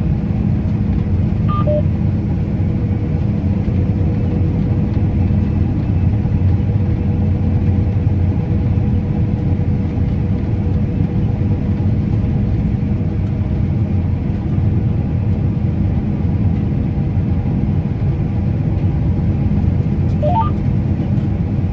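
Combine harvester running steadily while cutting wheat: an even low engine and machinery drone with a few constant hum tones.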